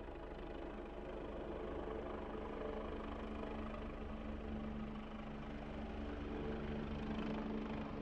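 Helicopter running: a steady engine drone over a fast, low pulsing from the rotor, slowly growing louder.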